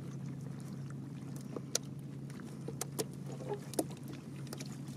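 Scattered light knocks and taps in a boat as fish are taken out of a cast net, over a steady low hum.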